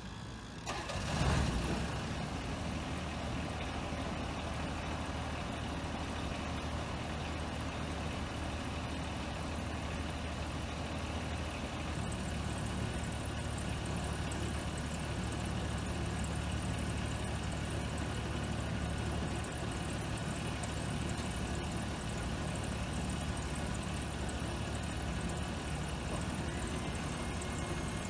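Delivery truck engine idling: a steady low drone, after a brief louder burst about a second in.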